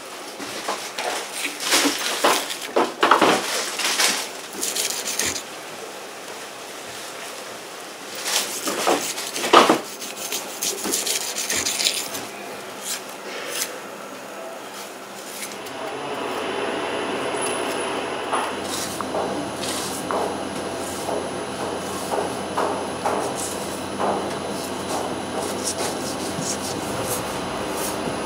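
A large kitchen knife cutting raw wild boar foreleg meat away from the bone on a cutting board, with irregular scrapes, slices and knocks of the blade on the board. About halfway through, a steady hum like a kitchen ventilation fan sets in under the cutting.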